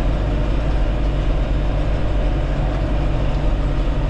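Tractor engine running steadily under load, pulling a John Deere 458 round baler that is forming a bale, heard from inside the cab.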